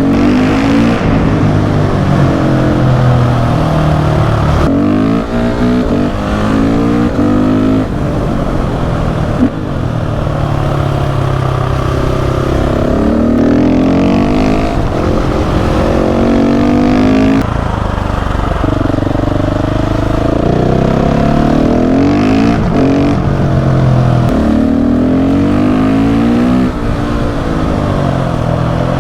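KTM 690 SMC R supermoto's single-cylinder engine with a Leo Vince exhaust, revving up hard through the gears and dropping back between sweeps several times, as it accelerates out of bends and slows into them.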